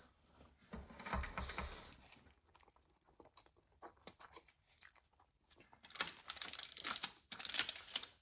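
Close-up eating sounds: chewing and biting on spicy instant noodles with egg and sausage, wet clicky mouth noises that swell about a second in and again from about six seconds.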